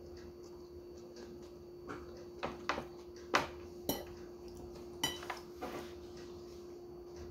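A metal fork clinking and scraping on tableware while eating: a handful of light clinks in the middle seconds, two of them ringing briefly, over a steady low hum.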